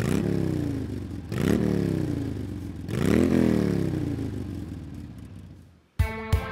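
Harley-Davidson Street 750's V-twin engine revved three times, each time rising quickly in pitch and then falling slowly back as it settles toward idle, the sound fading after the third rev. Guitar music starts near the end.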